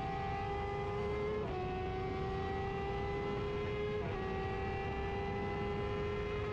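Onboard sound of an F1000 formula car's 1000 cc motorcycle-derived engine accelerating hard along a straight, its pitch climbing slowly and dropping sharply at two upshifts, about a second and a half in and about four seconds in, over steady wind and road noise.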